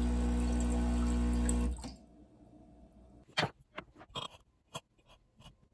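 Breville espresso machine's pump humming steadily as it flushes water into a glass dish, cutting off suddenly about two seconds in. A few sharp clicks and knocks of handling follow.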